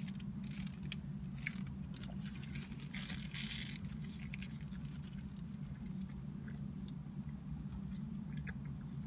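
Close-up eating of a foil-wrapped pretzel-bun bacon cheeseburger: a bite with a rustle of the foil wrapper about three seconds in, then chewing with small crunchy clicks. A steady low hum runs underneath.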